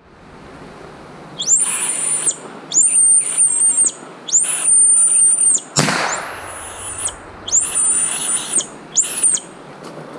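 A small animal giving a run of six high-pitched squeals, each rising sharply and then held for about half a second to a second, with a sharp click a little past the middle.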